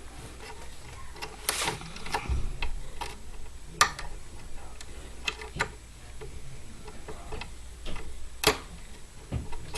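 Offset diamond lock pick clicking and scraping against the pins of a five-pin Zimmcor mortise cylinder loaded with spool and serrated security pins, as the pins are worked and set. Scattered light ticks, with sharper clicks about four seconds in and again near the end.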